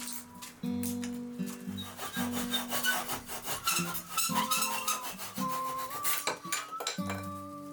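Rhythmic rasping strokes of a hand tool cutting back an oak dowel rod, over background music with held notes.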